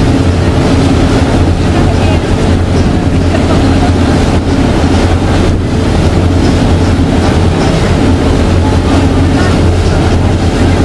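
Boat engine running steadily under way, a loud low drone with a constant hum and water noise over it.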